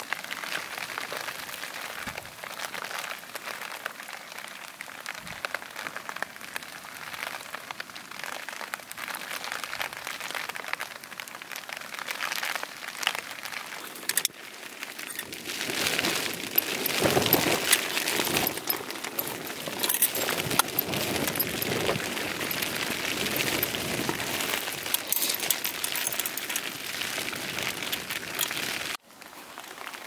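Rain pattering on a basha tarp and canvas tent, heard from inside: a dense, steady patter of drops that grows louder about halfway through and drops away sharply near the end.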